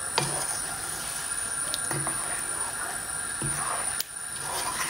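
Wooden spatula stirring chicken in a thick yogurt-and-spice sauce in a nonstick pan on a low flame, with a few light knocks against the pan over a steady hiss.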